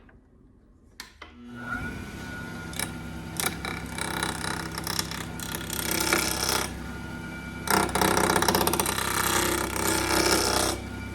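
Wood lathe switched on after a couple of clicks, its motor running steadily, while a turning tool cuts a glued-up bamboo cutting-board blank for a duck call; the cutting noise comes and goes and is loudest in the last few seconds.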